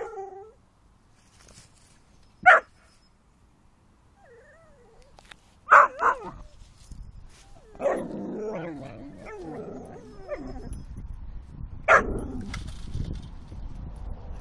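Whippets barking while they play: single sharp barks at the start and about two and a half seconds in, a quick double bark near six seconds, and another at twelve, with a longer stretch of mixed yelps and calls between about eight and ten seconds.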